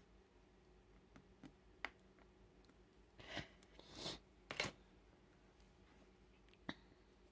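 Clear plastic cover film of a diamond painting canvas crinkling as it is handled, in two short bursts around the middle. A sharp click follows, and a few faint clicks come before and near the end.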